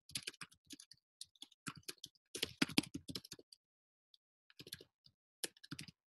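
Typing on a computer keyboard: quick runs of keystrokes, with a pause of about a second a little past the middle.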